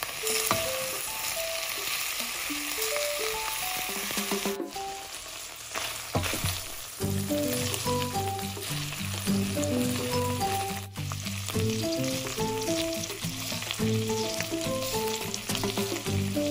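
Prawn heads and shells sizzling as they fry in oil in a pot, a steady hiss. Background music plays over it, with a melody of short notes and a bass line joining about seven seconds in.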